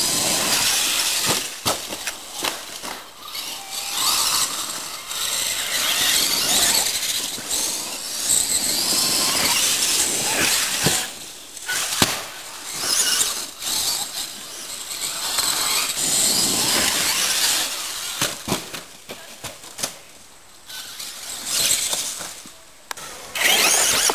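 Brushless electric RC monster truck running hard over rough dirt. The high motor and drivetrain whine rises and falls with the throttle, broken by sharp knocks and rattles from bumps and landings.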